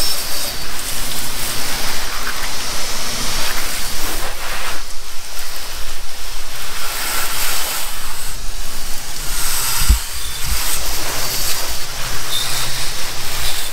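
Water from a hose spraying and splashing onto a boat's freshly waxed hull in a steady rush, with a low hum underneath and a couple of low thumps about ten seconds in.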